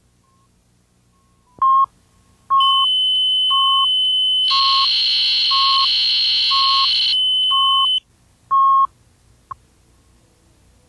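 Countdown leader beeps: short, even beeps about once a second, over a loud steady higher-pitched tone that runs through the middle of the countdown and turns harsh and buzzy for a couple of seconds. The count ends with a single very short blip, the two-pop, about a second and a half before the end.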